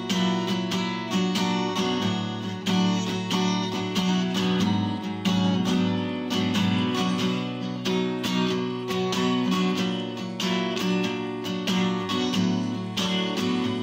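Background music on acoustic guitar: a steady stream of picked notes and strummed chords.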